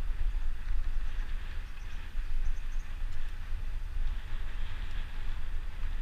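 Wind buffeting the microphone on a bicycle descending at speed: a gusty low rumble that rises and falls unevenly, over a steady rushing hiss.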